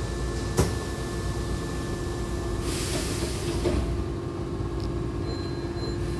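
Hankyu train's air-operated sliding doors closing: a sharp click about half a second in, then a hiss of air from about two and a half to four seconds in that ends in a light knock as the doors meet. A steady hum from the standing train runs underneath.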